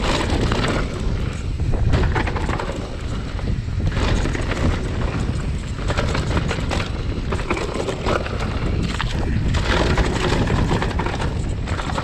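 Trek Session 29er downhill mountain bike being ridden fast down a trail, heard through wind rumbling on a chest-mounted action camera's microphone, with irregular knocks and rattles from the bike over the rough ground.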